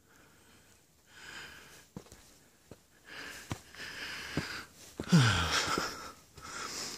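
A man breathing hard and wheezing from an uphill hike, out of breath, the breaths growing louder and closer together, with a loud voiced exhale that drops in pitch about five seconds in. Faint footsteps on the dirt trail.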